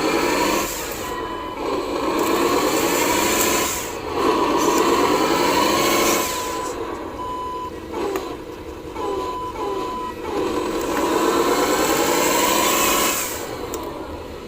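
Radio-controlled model truck's small electric drive motor whining in repeated runs of a few seconds, its pitch rising and falling as it speeds up and slows down. A high reversing beeper sounds alongside and breaks into short beeps near the middle.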